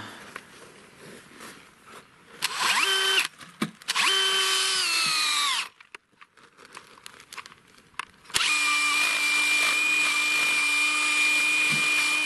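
DeWalt cordless drill boring a 5/8-inch tap hole into a birch trunk for sap. It runs three times: a short burst about two and a half seconds in, a longer run from about four seconds whose pitch sags near its end as the bit bites into the wood, and a steady run from about eight seconds on.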